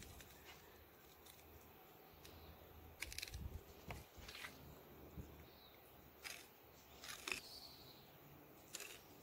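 Near silence, with a few faint ticks and short scrapes from a knife filleting a large fish along its soft cartilage.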